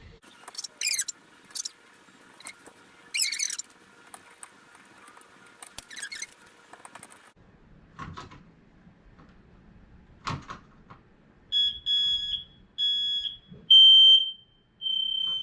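FireX i4618AC smoke alarm going off on test, working: a high-pitched horn beeping in short pulses that begins about eleven seconds in, after a few knocks and rustles.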